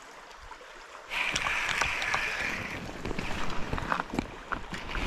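River water sloshing and splashing, swelling up about a second in, with scattered small clicks and knocks.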